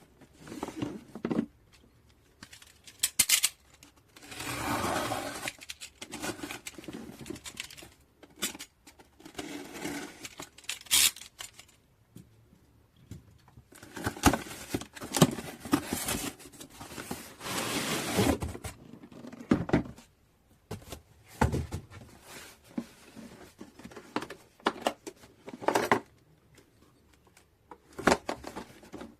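Hands handling a cordless drill kit and its hard parts: irregular clicks, knocks, scrapes and rustling with short pauses between. No motor is run.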